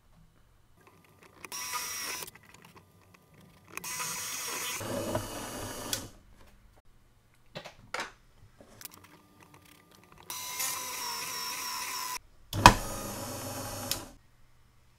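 Bench drill press motor running in several short bursts while drilling holes into polycarbonate blocks. Near the end there is one sharp, loud knock.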